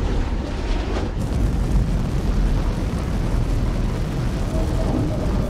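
Steady, deep rumble of a spacecraft's engines as it comes down to land.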